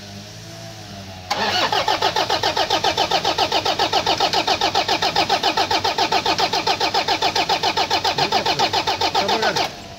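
Toyota 2KD-FTV four-cylinder common-rail diesel turned over on the starter motor, with a rapid even beat of about six or seven compression pulses a second. It cranks for about eight seconds without firing and then stops abruptly: a diesel with a starting problem that will not catch.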